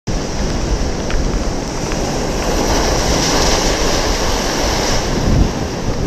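Rough storm sea: waves breaking and churning on the shore in a steady, loud rush, with wind blowing on the microphone.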